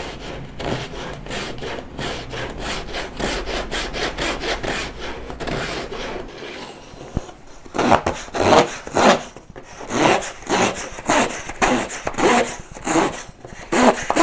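A Japanese saw's replacement blade, taken off its handle and guided flat along a plywood block, sawing back and forth through a small wooden offcut. Quick, short strokes for the first five seconds or so, a brief pause, then louder, slower strokes from about seven and a half seconds in.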